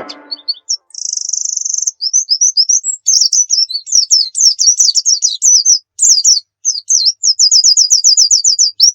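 A small songbird singing a varied run of chirps, quick slurred notes and rapid trills, with an even, fast trill near the end.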